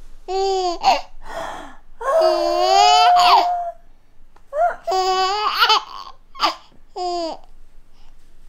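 Eight-month-old baby laughing and squealing in a string of short high-pitched bursts, with one long drawn-out squeal about two seconds in.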